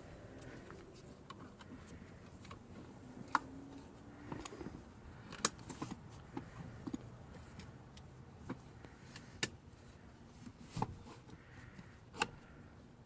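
Scattered sharp clicks and light knocks, about five of them spaced a few seconds apart, over a quiet steady background: small handling noises.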